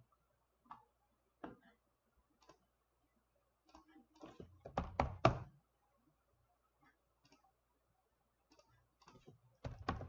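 Computer keyboard keystrokes and clicks, faint and scattered, with short quick runs of typing about halfway through and again near the end, as ticker symbols are typed into a chart search.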